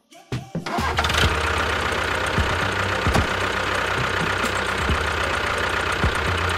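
A small motor starts up about a second in and runs steadily with a buzzing rattle.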